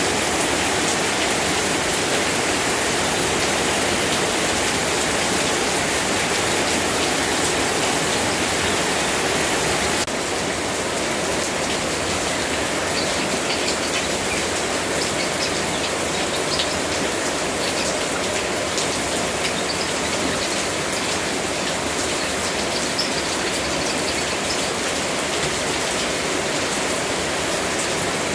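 Steady rain, a dense even hiss of falling water. About ten seconds in it changes abruptly to slightly quieter rain in which individual drops tick more distinctly.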